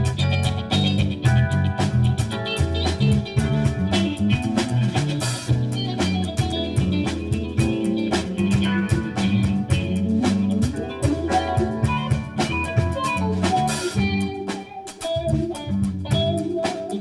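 A Marine Corps band playing a Christmas tune, with drums keeping a steady beat under the melody.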